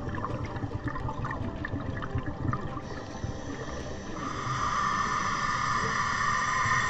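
Scuba regulator breathing heard underwater: a bubbly, crackling exhaust gurgle, then a steady hiss of a slow inhalation from about four seconds in.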